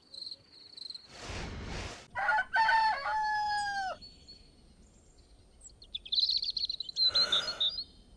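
Rooster crowing cock-a-doodle-doo, the loudest sound, ending in a long falling note, a cartoon wake-up-at-dawn sound effect. Before it, short high chirps like crickets and a brief rushing sound. Small birds twitter afterwards.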